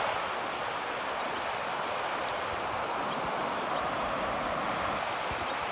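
Steady hiss of small waves washing onto a sandy shore, mixed with wind.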